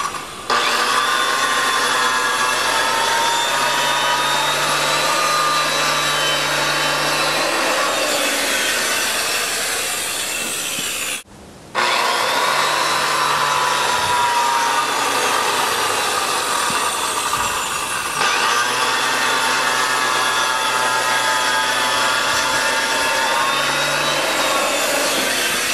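Handheld electric masonry saw with a concrete-cutting blade, running under load as it cuts a groove in a concrete slab: a loud, steady whining grind whose pitch wavers slightly as the blade bites. It cuts out abruptly for a moment about eleven seconds in, then carries on.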